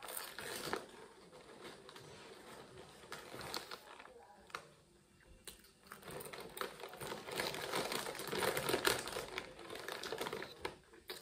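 Plastic potato-chip bag crinkling as a hand rummages in it, with chips crunching as they are chewed.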